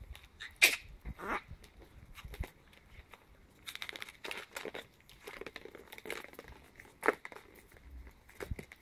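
Chihuahua puppies scuffling in play on a concrete floor: scattered short scratchy and sharp sounds, the loudest a single sharp one just under a second in, with a busier patch of scuffling about four seconds in.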